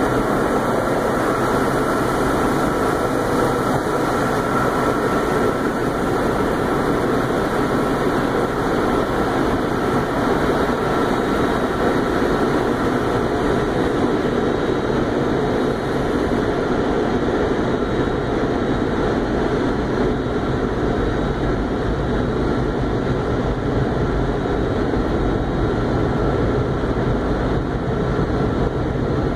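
Automatic car wash heard from inside the car: a steady rushing noise of the wash equipment working on the car, with a faint steady hum.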